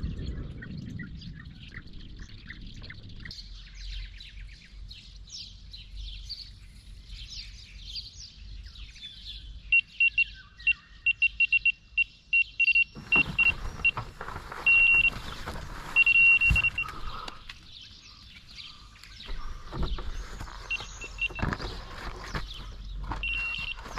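Electronic carp bite alarm on a rod pod beeping in a rapid string, then sounding in longer held tones of one high pitch: a fish is taking line on a run.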